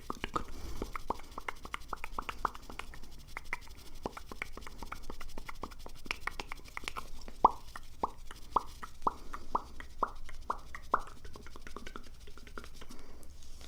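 Close-miked ASMR mouth sounds: a scatter of soft wet clicks and pops. About halfway through they settle into a steadier run of louder pops, about two a second.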